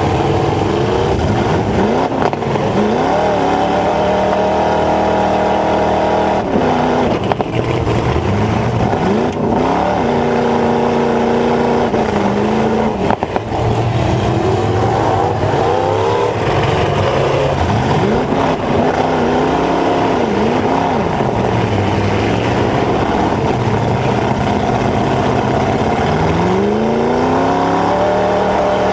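Dodge Ram pickup's V8 engine with open headers and stacks, heard from inside the cab, revving up and dropping back again and again as the truck is driven forward and in reverse. Near the end it climbs in one long rising rev.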